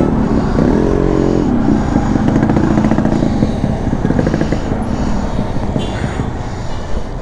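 Motorcycle engine running steadily at close range, amid street traffic, with a brief pitched tone about a second in.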